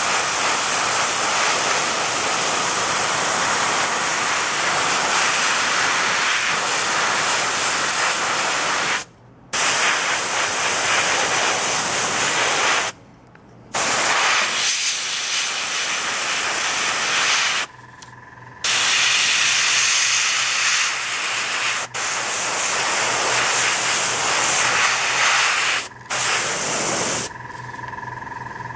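A 0.2 mm dual-action gravity-feed airbrush spraying paint, a loud steady hiss of air in long passes broken by four short pauses where the trigger is let go. The spraying stops shortly before the end.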